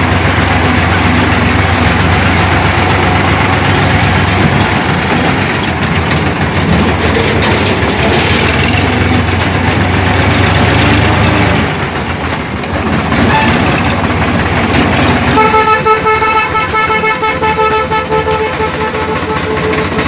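Sonalika tractor's diesel engine running as it drives, easing off briefly about twelve seconds in. From about fifteen seconds in, a horn sounds in one long steady blast of several seconds over the engine.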